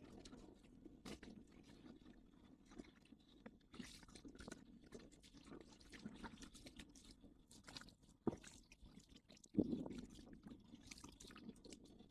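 Faint splashing and sloshing of people wading in shallow water around a small sailboat, with scattered small clicks and crackles. There is a sharp click about eight seconds in and a louder thump a second later.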